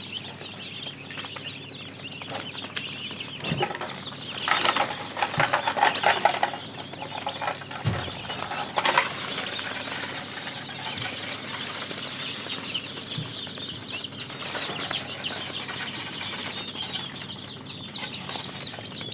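A brood of nine-day-old chicks peeping continuously, many short high falling chirps overlapping. Louder bursts of scuffling or wing-flapping come between about four and nine seconds in.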